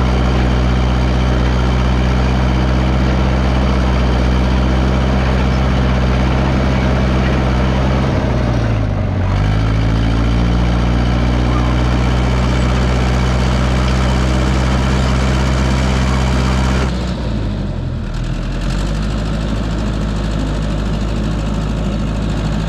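1969 Massey Ferguson 300 crawler dozer's engine running steadily at working speed. About eight seconds in, its pitch sags and climbs back. Near the end it drops to a lower, steady speed.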